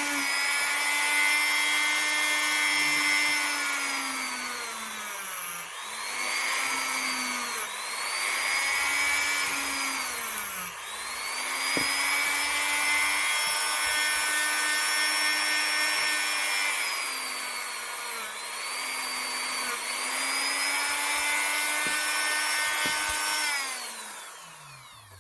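Dremel rotary tool running at high speed while polishing a steel revolver hammer or trigger. Its whine dips in pitch and recovers several times as the bit is pressed against the part, then spins down near the end.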